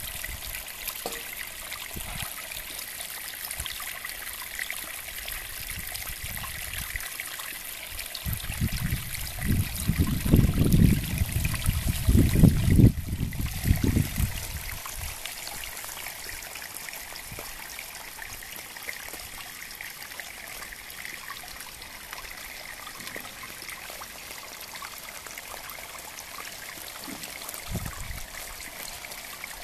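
Small garden-pond waterfall, water trickling and splashing steadily off a sandstone boulder into the pond. In the middle a loud low rumble swells for about six seconds, with a short weaker one near the end.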